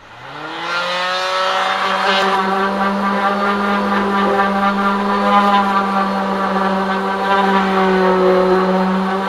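Electric palm sander with 120-grit paper switching on, its motor whining up to speed over about a second, then running steadily while sanding wooden drawer fronts.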